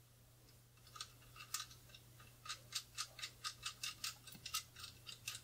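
Small hard clicks from a tripod part being twisted onto the aluminium center column: a few scattered clicks, then about halfway in a regular run of about five clicks a second, like a ratchet or threaded fitting turning.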